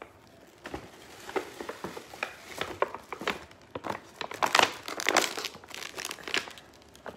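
Clear plastic gift wrap crinkling as it is handled, a dense run of irregular crackles that are loudest about four to five seconds in.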